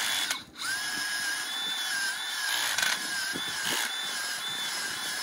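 Power drill spinning an auger bit into garden soil to bore a post hole, its motor giving a steady whine that wavers slightly in pitch as the bit bites. The drill stops briefly about half a second in, then starts again.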